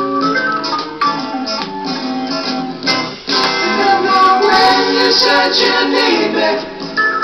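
Heavy psychedelic rock with guitar played from a vinyl LP on a Bang & Olufsen Beogram TX-2 turntable, with a brief break about three seconds in before the band comes back in.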